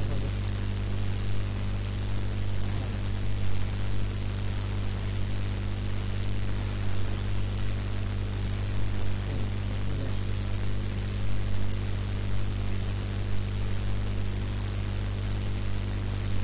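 Steady low electrical hum with a row of even overtones, under a constant hiss: the noise floor of the microphone line, with no other sound.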